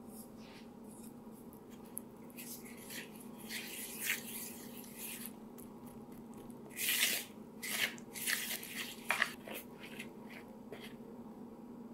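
A spoon stirring and scraping pancake batter in a plastic mixing bowl as flour and egg are worked into a thick batter: an irregular run of scrapes and squelches, busiest in the middle.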